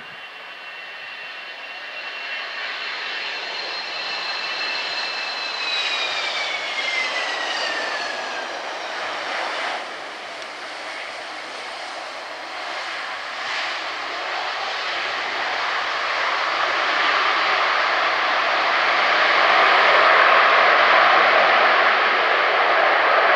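Boeing 767-200 jetliner landing. The engines' whine drops in pitch about six to eight seconds in as the plane passes. A rushing jet noise then grows louder through the landing roll, typical of reverse thrust.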